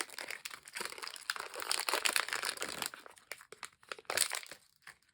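A small blind bag crinkling as it is torn open and handled, a dense crackle for about three seconds that thins to a few scattered crackles and dies away near the end.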